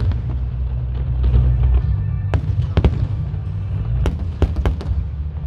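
Aerial fireworks bursting: sharp bangs in quick clusters about two seconds in and again around four seconds, over steady low music.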